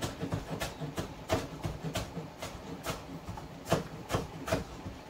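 Knife slicing shallot on a cutting board: a series of irregular knocks, about one or two a second, that stop shortly before the end.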